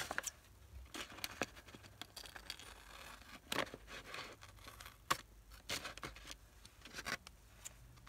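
Scissors snipping through paper in a string of short, irregular cuts, trimming the edge of a collage page.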